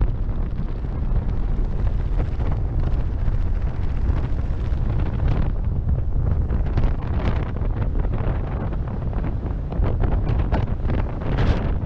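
Rushing air from a skydive buffeting the camera's microphone: a loud, steady low rumble of wind noise with irregular gusty surges.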